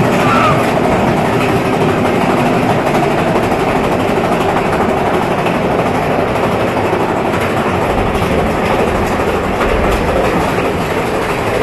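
Roller-coaster mine train cars rolling along their track, a steady rumble and clatter of wheels on rail, the low rumble growing heavier about eight seconds in.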